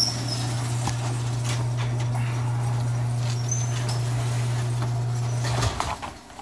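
Electric garage door opener running as a sectional overhead garage door closes: a steady low hum with light clicking and rattling. It stops abruptly about five and a half seconds in, as the door reaches the floor.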